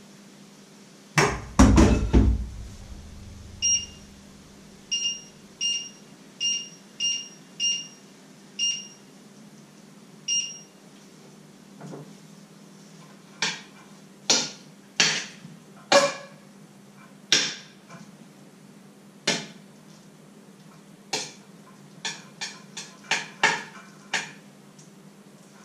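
Metal cookware clanking about a second in, then eight short electronic beeps from a kitchen appliance's controls over several seconds. From about 13 s on, a metal spoon clinks repeatedly against a steel pot as the food is stirred, over a steady low hum.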